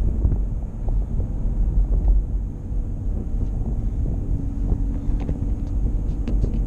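Engine and road noise heard inside the cabin of a Chevrolet Camaro with a manual transmission, driving slowly: a steady low rumble, with a few faint ticks near the end.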